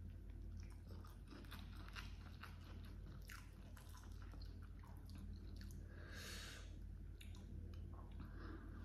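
Close-miked chewing of a mouthful of grilled rice with baby squid and petai, with many small wet smacks and clicks and some crunch. A short breathy rush comes about six seconds in, over a steady low hum.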